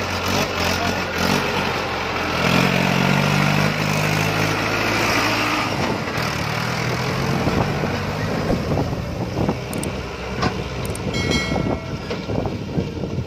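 Mahindra Arjun Ultra-1 555 DI tractor's diesel engine working under load as it hauls a trailer full of sand up a dirt track, loudest a few seconds in as it passes close by.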